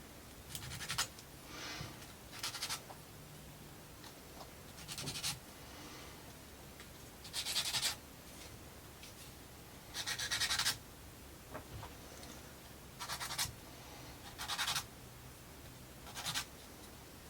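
Short scratching strokes of something rubbed against the plywood parts of a wooden model kit, about nine of them, each under a second long and irregularly spaced.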